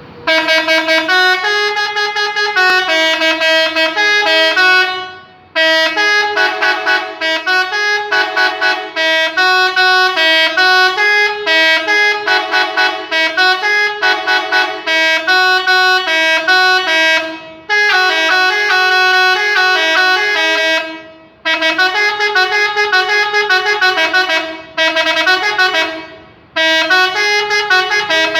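Indonesian "telolet" bus horn, a set of multi-tone air horns playing a quick, chiming melody in long phrases, with short breaks about five, eighteen, twenty-one and twenty-six seconds in.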